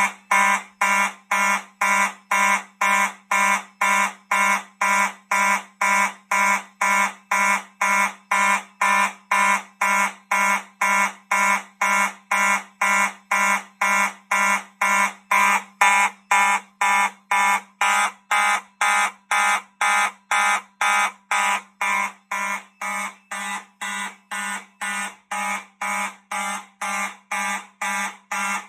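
Two fire alarm horn/strobes, a Simplex 4903-9215 and a Gentex GMS-24-15/75-WR, sounding together in march-time coding at about two blasts a second. This is the Fire-Lite MS-9600UDLS panel in alarm after a pull station has been activated.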